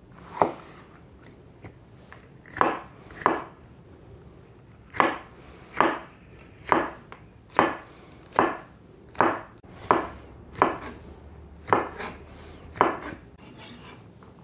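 Kitchen knife slicing a green pepper on a cutting board: a steady series of separate cuts, each ending in a sharp knock of the blade on the board, roughly one a second.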